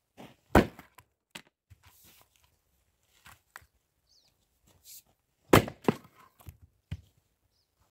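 An axe chopping a short round of firewood on a chopping block: two loud sharp chops, one about half a second in and another about five and a half seconds in, each followed by a few lighter knocks.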